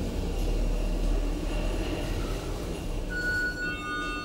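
1999 Schindler traction elevator car running with a steady low rumble during its travel. About three seconds in, a steady high electronic tone starts, with a second, lower tone joining just after.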